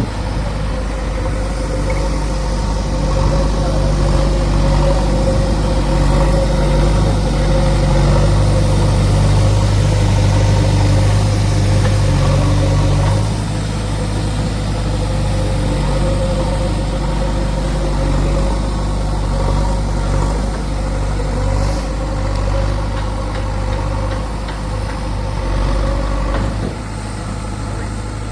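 Heavy diesel engine running steadily at a low pitch. It is louder through the first half, drops in level about halfway through, and dips again near the end.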